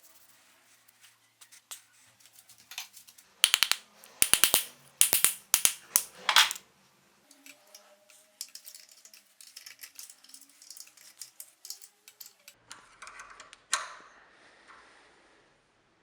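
Sharp clicks and knocks of small metal parts and hand tools being handled, loudest in a cluster about four to six seconds in, then lighter ticking, and a brief hiss near the end.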